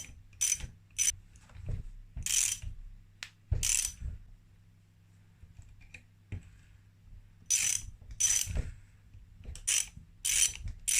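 Ratchet wrench clicking in short bursts as cylinder studs are wound in and tightened, with a pause of about three seconds midway.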